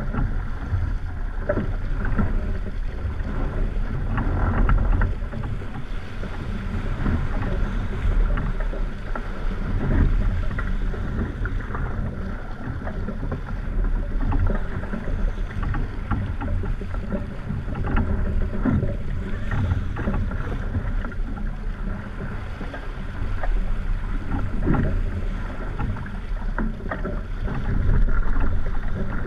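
Wind gusting over a deck-mounted camera on a racing sailboat under way, with water rushing and splashing along the hull; the rumble swells and eases every few seconds.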